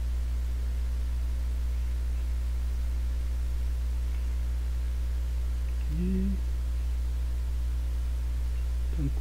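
Steady low electrical mains hum on the recording, with a second steady hum line above it. Nothing else is going on.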